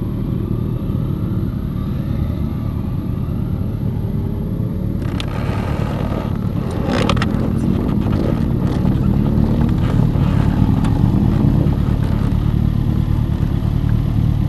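Motorcycles riding past one after another, engines rising in pitch as they accelerate away, over a steady engine hum. The passing engines get louder about halfway through.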